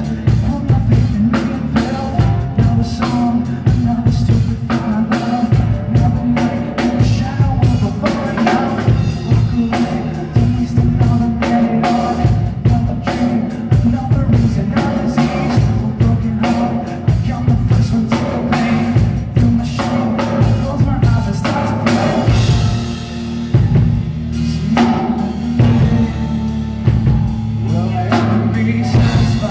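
Live indie rock band playing a song on drum kit, electric bass, acoustic guitar and electric guitar, with a male lead singer.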